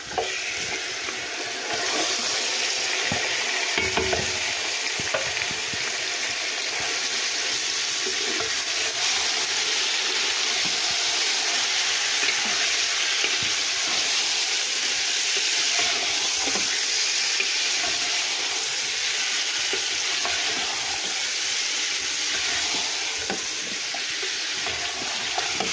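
Marinated chicken pieces going into hot butter and mustard oil with fried onions and sizzling steadily in the pot, the sizzle jumping up sharply as the chicken goes in. A wooden spoon stirs and scrapes through the pieces, with a few light knocks against the pot.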